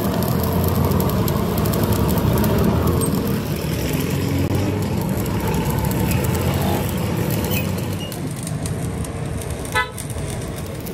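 Stick (arc) welding crackling and sizzling steadily as weld is laid onto a broken crankshaft journal to rebuild it. A vehicle horn toots once, briefly, near the end.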